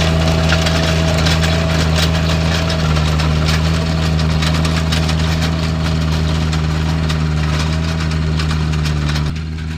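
John Deere 1025R compact tractor's three-cylinder diesel running steadily under load while driving a rear PTO tiller through wet sod, with a steady rattling clatter of clicks and knocks. The owner puts much of this shaking down to the quick hitch rather than the tiller. It drops a little in level near the end.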